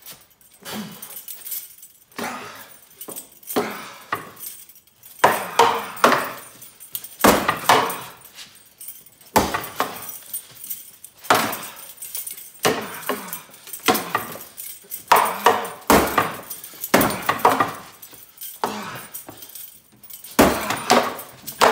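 Heavy wooden training sword striking a wooden training post again and again in quick flurries of hits, with pauses between them. Metal fittings on the soldier's belt and apron jangle with each movement.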